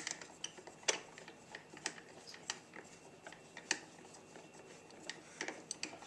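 Irregular small clicks and taps of hands working the two thumb screws loose on a Buon Vino Mini Jet wine filter and handling its plastic housing.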